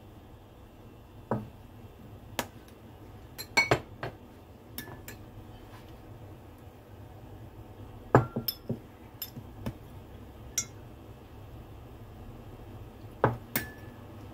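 A metal spoon clinking and tapping against a small glass bowl while oyster sauce and soy sauce are scooped and mixed into a stir-fry sauce. Sharp clinks come in scattered clusters, the loudest about halfway through, a few ringing briefly.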